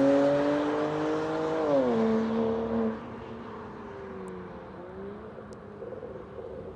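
BMW 335i turbocharged inline-six running through an aftermarket valved exhaust, pulling under acceleration with rising pitch. The pitch drops at an upshift just before two seconds in. About three seconds in it turns much quieter, and the engine carries on faintly with a wavering pitch.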